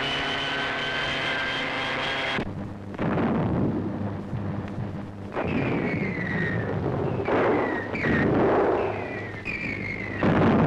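Bomber aircraft engines droning steadily, cut off suddenly about two seconds in. Then a string of bombs falls: three falling whistles and about five explosions.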